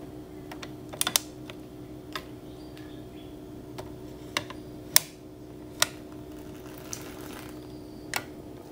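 About seven sharp, irregular plastic clicks and taps from ice cube trays being handled, over a steady hum.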